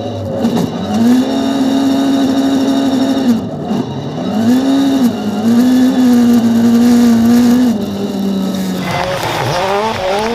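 Ford Fiesta rallycross supercar engine heard from inside its cabin at high revs, its note holding high and dipping briefly three times before dropping about 8 s in. About 9 s in the sound switches to a rallycross car going past trackside, its pitch rising and falling.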